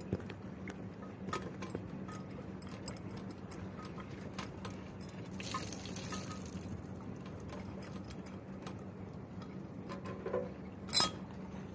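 Light, irregular clicks and taps of a chrome pop-up waste fitting being handled against a ceramic basin's drain hole, over a steady low hum. There is a brief scraping rustle about halfway through and a sharper clack near the end.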